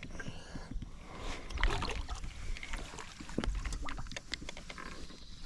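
Low rumble of wind and water around a small fishing boat, with scattered small clicks and knocks at irregular times.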